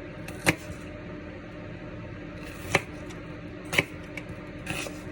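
Kitchen knife slicing an onion thinly on a cutting board: a few slow, unevenly spaced cuts, each ending in a sharp knock of the blade on the board.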